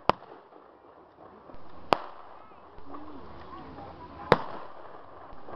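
Three separate blank gunshots from a mock battle, a couple of seconds apart, each a sharp crack, the third the loudest, over a faint murmur of voices.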